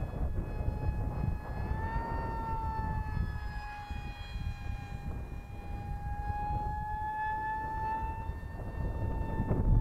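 Radio-controlled foam model jet's motor whining steadily in flight, its pitch drifting slightly up and down as it flies. Low wind rumble on the microphone runs under it and gets louder in a burst near the end.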